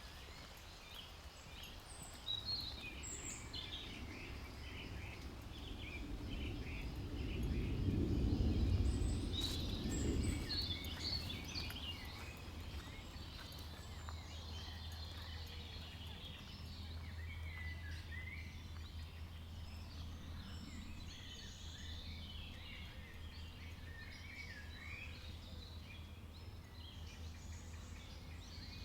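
Songbirds chirping and calling all around, many short notes overlapping. A low rumble swells up about a third of the way in and fades again a few seconds later, leaving a steady low hum under the birdsong.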